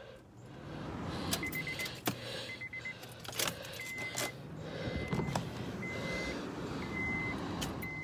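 A car's warning chime beeping about once a second while the ignition key is worked and jingles, with a few sharp clicks and a low steady hum underneath. The car fails to start, which the owner thinks is probably a failed starter.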